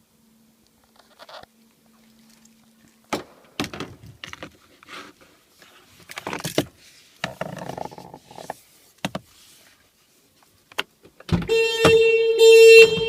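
Scattered clicks, knocks and rustling of a hand reaching in through the open window of a 2013 Kia Sportage and working the inside door handle and lock. Then, about two seconds before the end, a clunk as the door is opened from inside sets off the factory alarm, which sounds the car's horn in loud, steady-pitched pulses.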